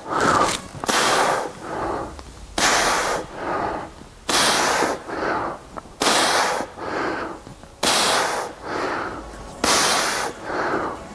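A man's hard, rhythmic breathing through the mouth while doing dumbbell bent-over rows. Six sharp, hissing breaths come about once every 1.7 seconds, each followed by a softer, lower breath, paced with the pull and lowering of each rep.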